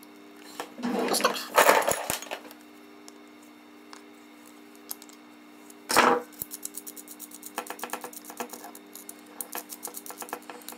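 Fingers handling a small circuit-board module and its thin plastic case parts: light clicks and taps, two louder knocks about a second in and near the middle, then a run of quick small ticks from about seven seconds on, over a faint steady hum.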